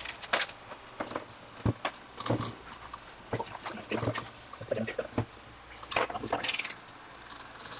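Scattered metal clinks and knocks from an e-bike geared hub motor being handled on a wooden worktop: hardware on the axle clinking, and the motor set down flat with a dull thump about two seconds in.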